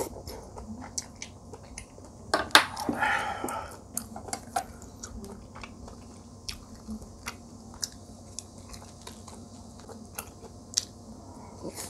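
A person eating close to the microphone: chewing and biting, with soft mouth clicks throughout and a short, louder burst of clicks and noise about two and a half seconds in.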